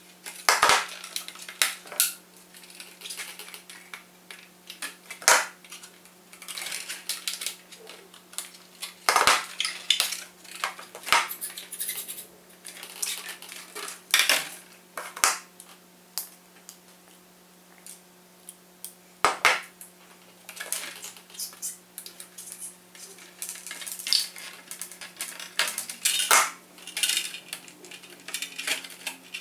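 Irregular clicks, clinks and short scrapes of small hard plastic and metal parts being handled during servo pushrod fitting, over a steady low hum.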